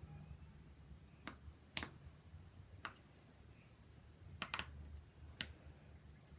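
Silicone pop-it fidget toy having its bubbles pressed through, about six soft, sharp pops at an uneven pace.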